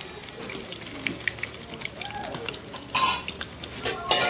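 Metal slotted spoon clinking and scraping against a steel karahi while batter-coated eggs fry in oil, with two louder, short bursts about three seconds in and near the end.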